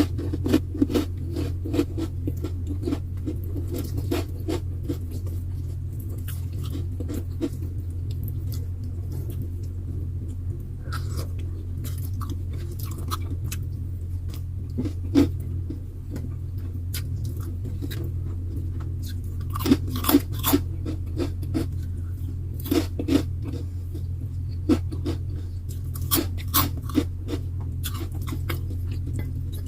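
Close-miked eating: chewing and crunching of food, with sharp crunches and clicks coming in clusters, over a steady low hum.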